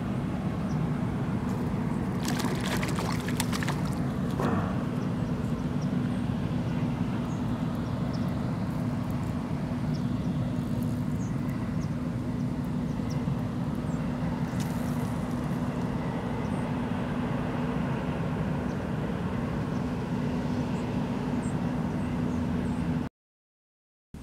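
A steady low drone with a constant hum in it, broken by a few clicks and rustles about two to four seconds in; it cuts off suddenly near the end.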